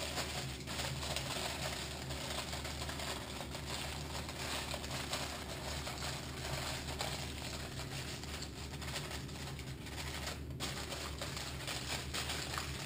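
Aluminium foil being folded and crimped shut by hand, a soft irregular crinkling, over a steady low hum.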